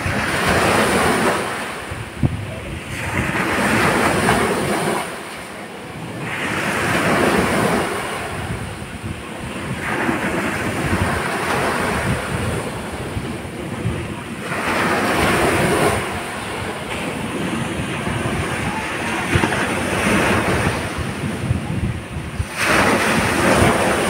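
Small sea waves breaking and washing up a beach, the surf hiss swelling and falling back every few seconds. Wind buffets the microphone underneath.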